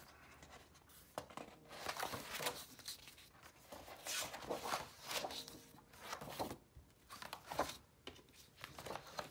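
Paper rustling and swishing as the pages of a spiral-bound sketchbook are turned by hand, in a series of uneven swishes.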